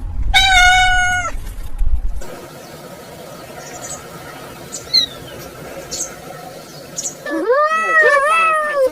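Kitten meowing: one steady meow about half a second in, then after a quieter stretch with a few faint chirps, a longer meow near the end that wavers up and down in pitch.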